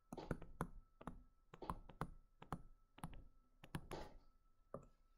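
Stylus tapping and clicking on a tablet's writing surface while handwriting: faint, irregular sharp ticks, several a second.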